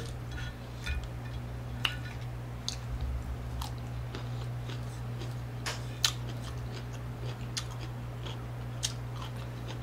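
A person chewing a mouthful of steamed broccoli close to the microphone, with scattered sharp mouth clicks and smacks. A steady low hum runs underneath.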